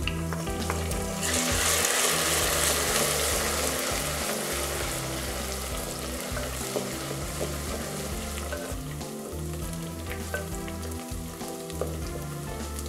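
Ginger and green chilli paste sizzling in hot oil with browned onions in a clay handi as it is stirred with a wooden spoon. The sizzle flares up about a second in and then slowly dies down.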